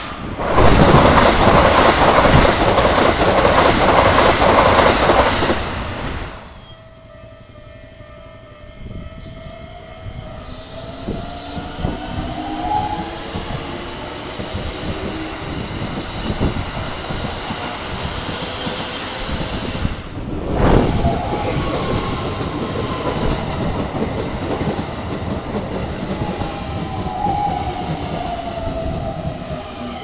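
Keikyu electric trains passing over a level crossing at speed, their wheels clattering on the rails. It is loud for the first six seconds, then drops sharply, and a whine rises and falls over the steady rumble for the rest.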